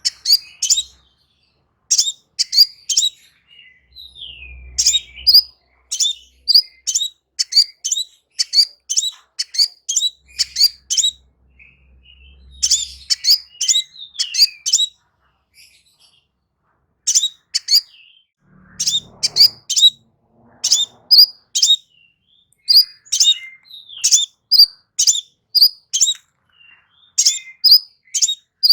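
Crimson sunbird singing: long runs of rapid, sharp, high-pitched chirps, broken by a few short pauses.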